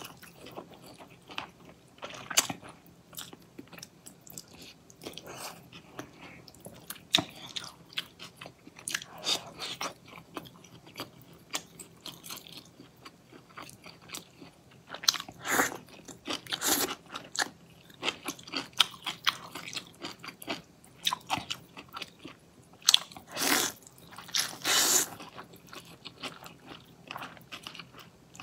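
A person slurping cold noodles out of broth and chewing with crunchy, wet mouth sounds. Several loud slurps come a few times, with quieter chewing clicks between them.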